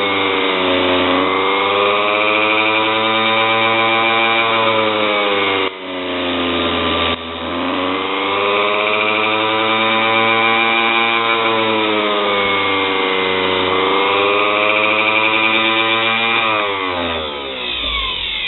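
Homemade mini bench grinder, a small electric motor spinning a small grinding wheel, running with a loud whine while a 3/16-inch lathe bit is held to the wheel. The whine sags and climbs in pitch several times and breaks off abruptly twice. Near the end it falls steeply in pitch as the motor winds down.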